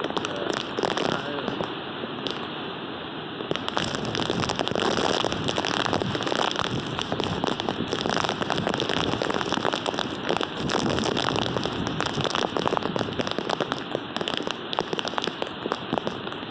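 Hurricane rain pelting a hard surface: a dense, irregular crackle of hard-hitting drops over a steady rushing hiss, getting a little heavier about three and a half seconds in.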